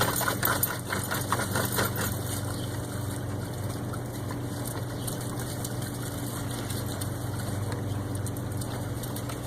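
Water splashing during the first two seconds or so, then steady running-water hiss over a constant low machine hum.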